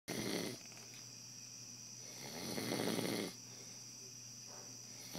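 A man snoring in his sleep: a snore ends in the first half-second, then a longer one builds and peaks about two to three seconds in, with quiet breathing between, about one snore every three seconds.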